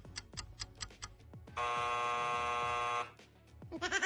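A game timer's rapid ticking, then a steady electronic buzzer sounding for about a second and a half, marking the end of the round's search time.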